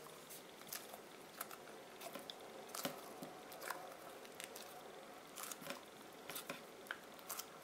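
Faint, irregular squishing and crackling of a slime-filled balloon stress ball being squeezed and kneaded in the hands, with scattered small clicks.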